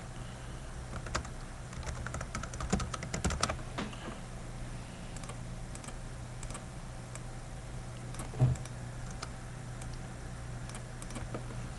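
Computer keyboard typing in short bursts of clicks, busiest about three seconds in, with a single louder thump about eight and a half seconds in, over a steady low hum.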